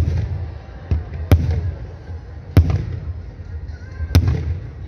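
Aerial firework shells bursting: four sharp bangs about a second and a half apart, each trailing off in a short echo.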